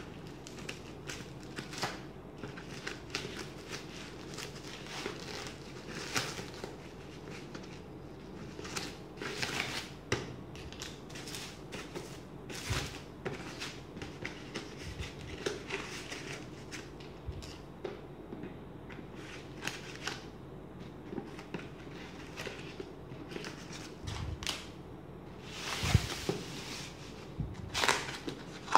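Bubble wrap and packaging being cut with scissors and pulled off a box by hand: scattered snips, crackles and crinkling rustles, with louder rustling near the end.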